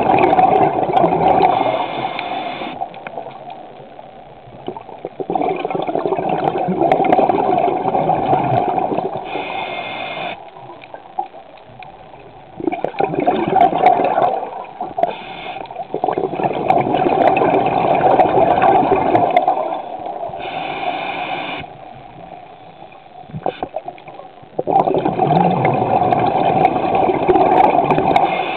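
Muffled water noise around a submerged camera. Surges of sloshing and gurgling last several seconds each, with quieter gaps between them.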